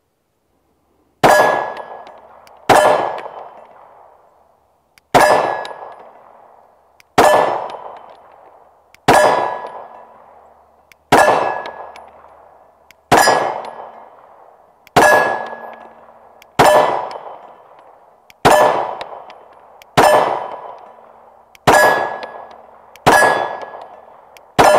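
Glock 19 Gen 5 9mm pistol firing slow, evenly paced single shots, about fourteen, roughly one every one and a half to two seconds, each followed by the ringing clang of a steel plate target being hit.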